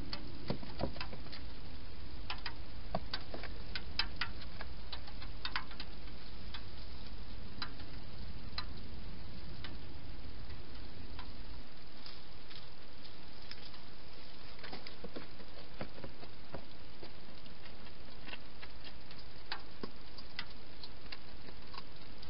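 Hedgehog feeding from bowls inside a plastic feeding box: irregular clicks and ticks of eating and of its moving against the plastic. A low rumble under them cuts off suddenly about eleven seconds in, and the clicks thin out after that.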